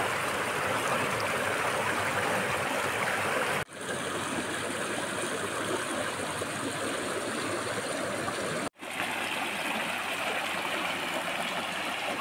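Rocky mountain stream rushing and splashing over stones, a steady loud rush of water. It cuts off for an instant twice, about four and nine seconds in, each time coming back slightly different.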